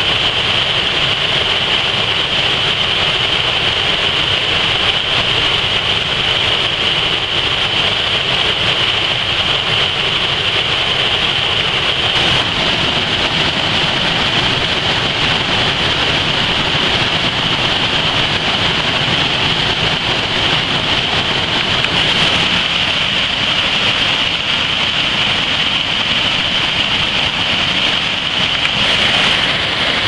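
Waterfall cascading over rocks: a loud, steady rush of falling whitewater, even throughout.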